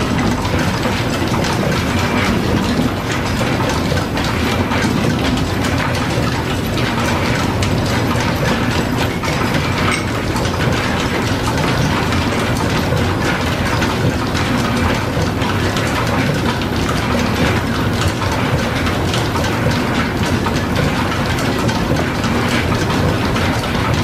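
Belt-driven metal shaper running, its ram stroking back and forth as the tool cuts metal, with steady mechanical clatter and clicking from the machine and its flat-belt line-shaft drive.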